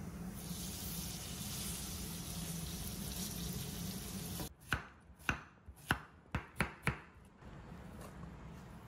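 Zucchini pancake batter sizzling in hot oil in a frying pan, then about seven sharp knife chops on a cutting board, a little irregular in spacing.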